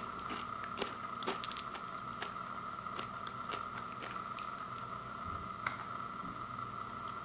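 Scattered small clicks of hard candy-shelled peanut and peanut butter M&M's knocking together as they are shifted about in an open palm, with a brief, crisper rattle about a second and a half in. A faint steady whine sits underneath.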